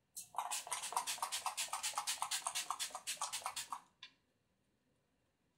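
Anastasia Beverly Hills Dewy Set setting spray misted onto the face in a rapid run of short hissing sprays for about three and a half seconds, with one last faint spray about four seconds in.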